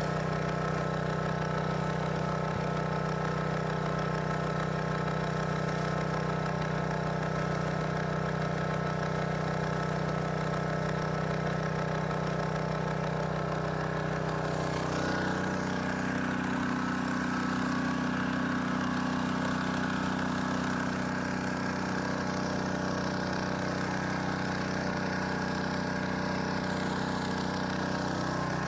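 Small gasoline engine of a salvage dewatering pump running steadily. About halfway through, its note shifts slightly higher and rougher, as the load on the pump changes.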